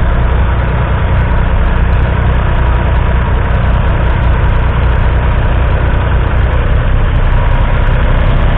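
1974 Massey Ferguson 148's 2.5-litre three-cylinder diesel engine running steadily under load, pulling a two-furrow mounted plough through the soil.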